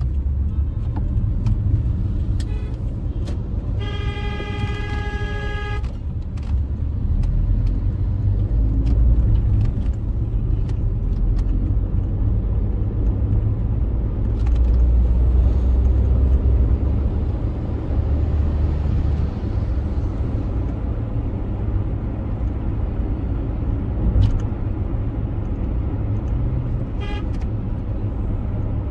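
Steady low rumble of a car driving on a city street, with a car horn sounding one steady note for about two seconds a few seconds in, and a short faint toot near the end.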